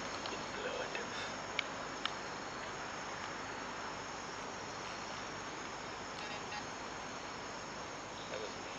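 Steady chorus of night insects, with a couple of small clicks about a second and a half and two seconds in.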